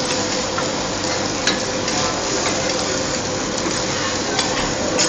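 Fried oyster (oyster omelette) sizzling as it fries on a hot pan, a steady sizzle with a couple of sharp clicks.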